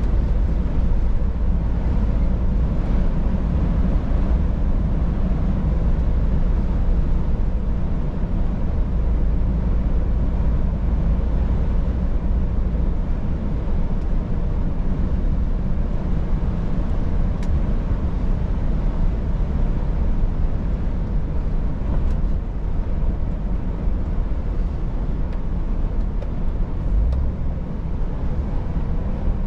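Scania S500 truck's 13-litre six-cylinder diesel engine running under way, with tyre and road noise: a steady low rumble. The deepest part of the drone eases off about halfway through.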